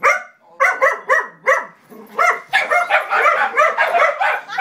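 A puppy barking repeatedly in high-pitched barks, excited by a moving RC car. A few separate barks come first, then from about halfway on they come fast, one on top of another.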